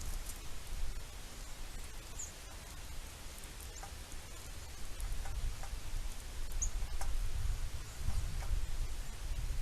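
Outdoor feeder ambience: faint, irregular ticks and taps over a steady low rumble, with two brief high-pitched bird chirps about two and six and a half seconds in.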